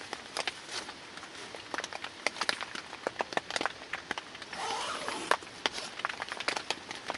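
Rustling and crinkling of a nylon tent door and a raincoat as someone handles the tent doorway, with many irregular sharp ticks and a brief louder rustle a little past the middle.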